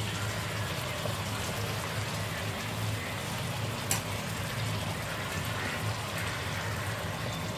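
Masala-coated surmai (king mackerel) pieces sizzling in hot oil on a flat iron tawa, with a steady low hum beneath and one sharp click about four seconds in.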